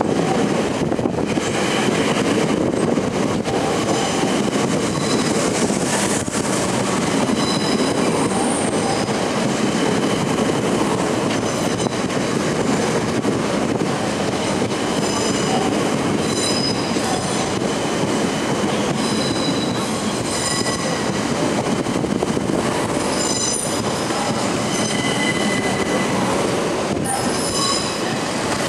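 Southeastern Class 376 Electrostar electric multiple unit running slowly along the platform as it brakes to a stop: a steady rumble of wheels on rail, with high squeals and whines that come and go many times.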